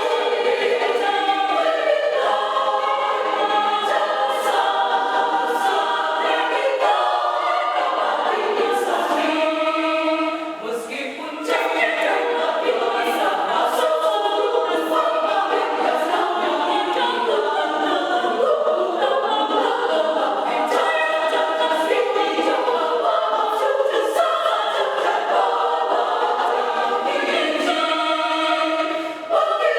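Small women's church choir singing in parts, with short breaks in the phrase about ten seconds in and near the end.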